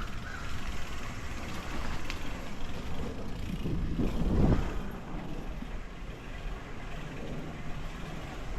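Mountain bike riding over a soft, muddy dirt trail: steady low rumble from the tyres, the bike and wind on the microphone, swelling louder about four seconds in.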